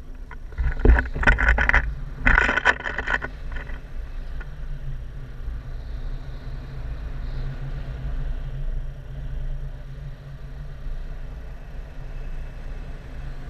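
Wind rushing over an action camera's microphone in flight under a tandem paraglider, a steady low rumble. About a second in come two loud bursts of rustling and buffeting, each about a second long.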